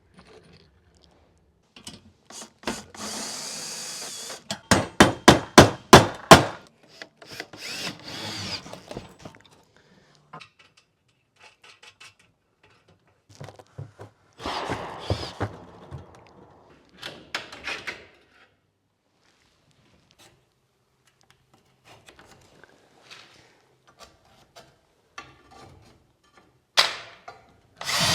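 Power drill running in short bursts while garage door track is fastened up, with a quick series of about eight loud sharp knocks a few seconds in and scattered knocks and tool handling between.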